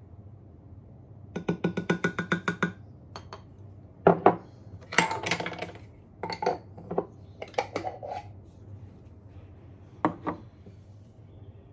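A wooden spoon tapped quickly against the rim of a container about ten times, giving ringing clinks. These are followed by louder knocks and clatter of glass jars being set down and picked up on a kitchen counter.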